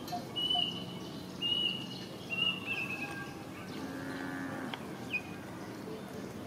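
Animal calls: a run of short, high, thin whistled calls about once a second, then a lower, drawn-out call with a couple of quick sliding squeaks just after it.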